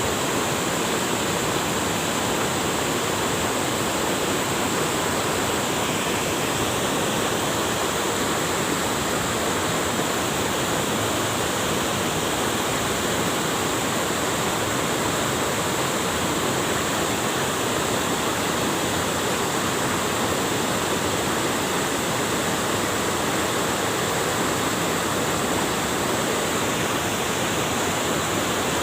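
River water rushing over rocks, a steady, even rush with no breaks.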